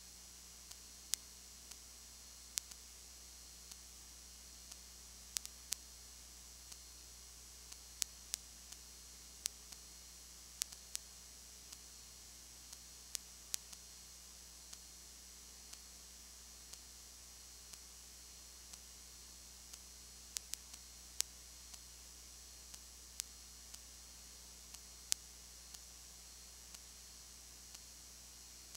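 Faint recording noise: a steady hiss and a low electrical hum, broken by sharp, irregular clicks about once or twice a second. The game itself is not heard.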